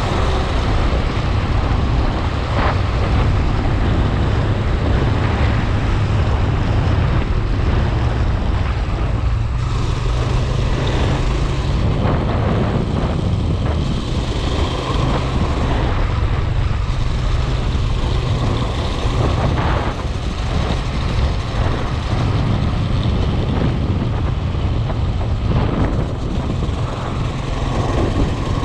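Steady low rumble of a vehicle on the move, engine and road noise running continuously with small rises and dips in level.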